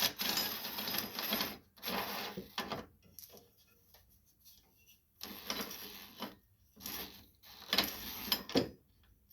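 Socket ratchet clicking in several bursts of strokes, with short pauses, as a bolt on the mower's steering gear is loosened.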